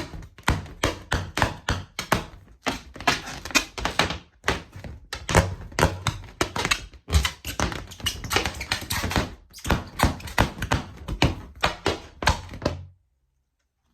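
Balloons popping one after another in a rapid series of sharp pops, several a second and sometimes in quick clusters, stopping abruptly near the end.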